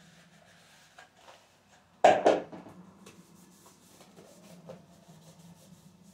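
Household items being handled and wiped on a kitchen table, with faint rubbing and light clicks, and a loud double knock of something being set down or clattering about two seconds in.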